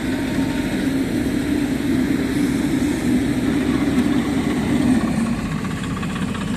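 Photovoltaic pile driver's engine running steadily, a continuous low drone with no distinct hammer blows.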